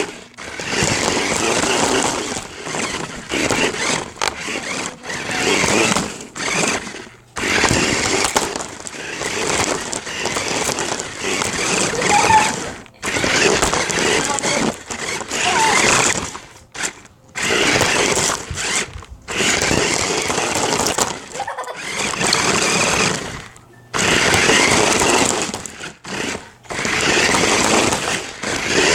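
RC truck's motor and gears whirring with its wheels rattling over the ground, heard up close from a camera taped to the truck. The noise comes in bursts of one to three seconds with short breaks as the throttle is applied and let off.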